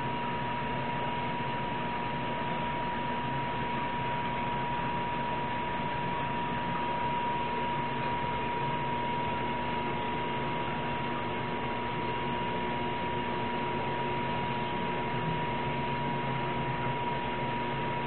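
Steady hiss and hum of a running aquarium filter, with a constant high whine over it and no changes.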